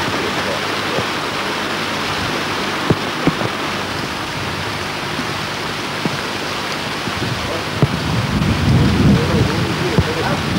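Steady hiss of rain falling, with a few sharp knocks. A heavier low rumble joins about eight seconds in.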